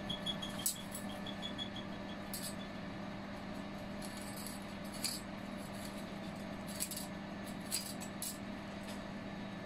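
Steel scriber scratching marks onto a flat steel bar: a few short, faint scrapes scattered through, over a steady low hum.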